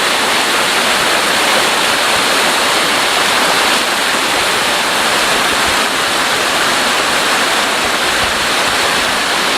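Small waterfall: water pouring and splashing in a steady, loud, unbroken rush.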